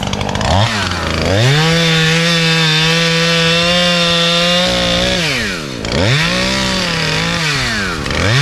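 Gas chainsaw's two-stroke engine revving up from idle and cutting at the base of a small tree, held at full throttle for about four seconds. It then drops back and is revved twice more in shorter bursts.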